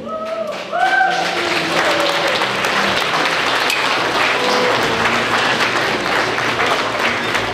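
Audience applauding, a dense steady clapping that builds within the first second and holds, with a few voices calling out as it starts.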